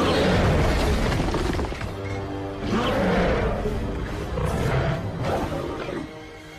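Film dinosaur sound effects over dramatic orchestral score: a Carnotaurus roars in several rough bursts, after a heavy crashing hit at the start.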